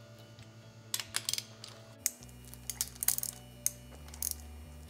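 Ratchet wrench clicking in short bursts as the bolts on a Mazda 13B rotary engine's housing are loosened by hand.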